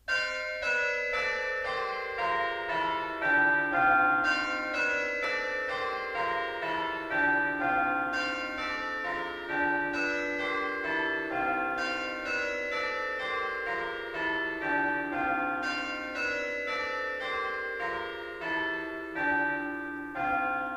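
Church bells ringing a steady peal of overlapping strikes, about two a second, each note ringing on into the next. The ringing dies away at the end.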